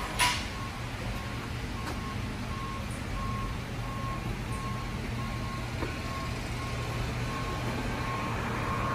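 A vehicle's reversing alarm beeping steadily at one pitch, a little over one beep a second, over a low steady machinery hum. A sharp knock comes just after the start.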